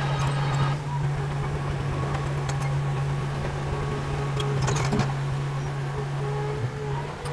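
Heavy diesel engine running steadily under a low, even drone, with a few brief metallic clanks about halfway through.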